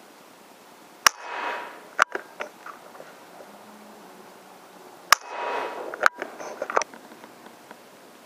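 PCP air rifle shots: two sharp cracks about four seconds apart. Each is trailed by a short rushing hiss and followed about a second later by further sharp clicks.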